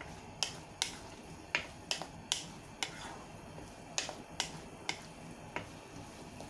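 Wooden spatula knocking and scraping against a nonstick wok while stirring diced carrot and chayote: about ten sharp taps at uneven intervals.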